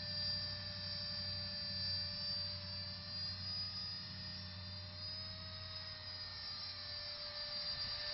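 Electric motor whine of the Mono-Phan 8 thrust-vectoring nano drone in flight, a steady high hum of several tones that drift gently up and down in pitch.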